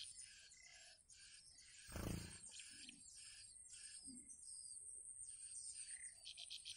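Nestling songbirds begging with a quick run of thin, high chirps, several a second. A brief thump sounds about two seconds in.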